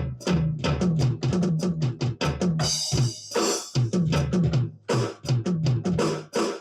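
ddrum electronic drum kit being played: a busy beat of kick and snare hits, broken about three seconds in by a crash cymbal, after which the beat picks up again.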